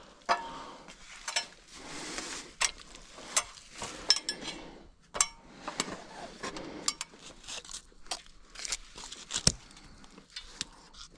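Irregular metal clinks, clanks and knocks from strap and rigging hardware being handled, with rustling between them.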